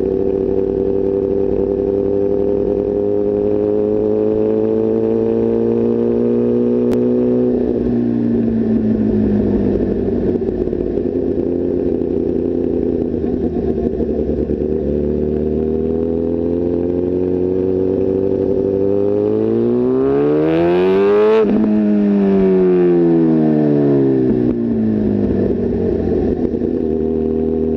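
Sport motorcycle engine heard from the bike itself while riding: the revs climb steadily for about seven seconds, then ease off and hold. About twenty seconds in the throttle is opened hard and the revs rise sharply, then wind down steadily as it is closed.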